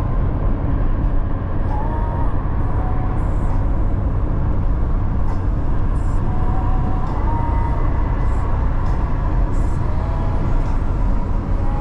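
Steady road and engine noise inside a car cruising at about 80 km/h on a highway, loudest at the low end, with a few faint short whines.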